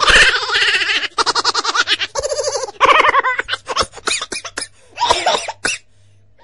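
Laughing: runs of quick pitched ha-ha pulses broken by short pauses.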